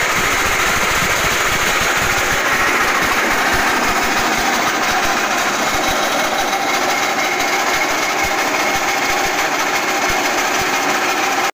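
Shark SE168 5.5 hp single-cylinder petrol engine running steadily at speed, driving a forage chopper.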